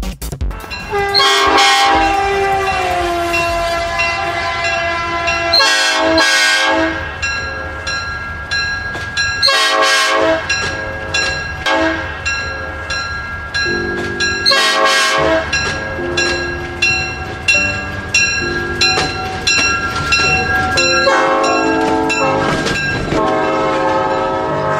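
Battery-operated toy train's electronic sound effects: synthesized horn blasts, about four seconds apart, over a run of repeating beeping tones.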